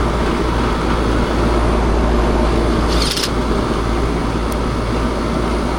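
Coleman R22 package air-conditioning unit running steadily, its compressor and condenser fan going with a low steady hum, now that the damaged capacitor has been replaced. A short hiss about three seconds in.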